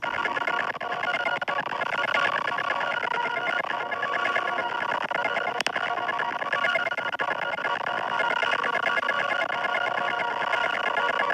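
Heavily processed electronic sound from the 4ormulator V303 V2 effect: a buzzy, many-layered tone with a rapid flutter, running steadily, with one sharp click about five and a half seconds in.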